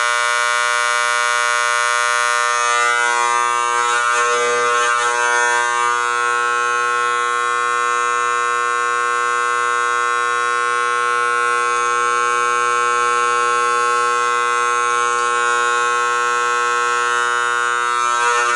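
Fire alarm horn sounding continuously, the system in alarm: one steady, buzzing horn tone with no pauses, wildly loud.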